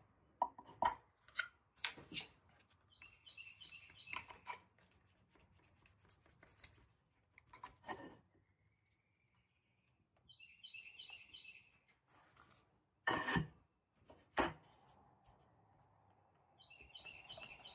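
Squeegee and spatula scraping over a screen-printing screen as it is flooded with transparent base, in a few short scratchy strokes, with light knocks and taps of the tools against the frame between them.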